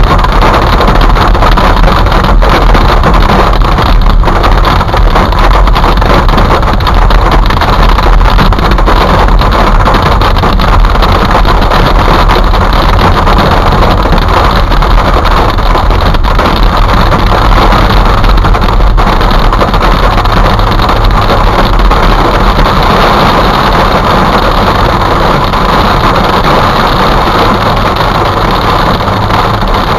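Hail and rain drumming hard on a car's roof and windshield, heard from inside the moving car's cabin as a loud, dense, unbroken clatter that eases slightly near the end.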